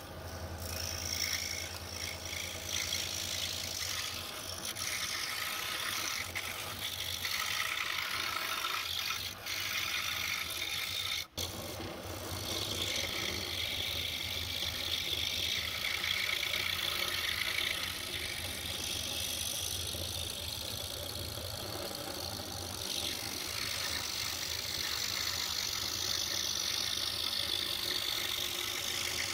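DeWalt scroll saw running steadily, its blade stroking up and down as it cuts a curve in a thick board for a large script letter: a constant motor hum under a fast rattle. The sound cuts out for an instant about eleven seconds in.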